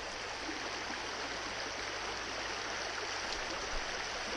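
Creek water rushing steadily through a shallow, rocky riffle.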